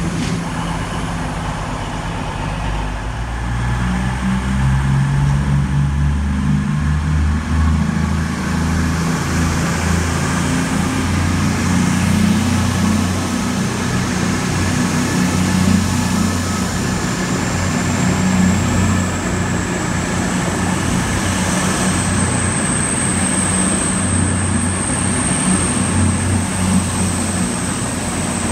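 Diesel train engine running, a low drone that shifts in pitch a few times. A faint high whine builds over the last few seconds.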